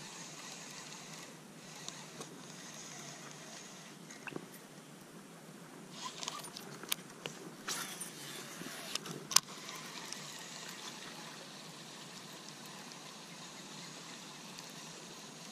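Faint, steady trickle of river water, with a handful of short clicks and one sharp tick about six to nine seconds in as a baitcasting reel is cast and engaged for the retrieve.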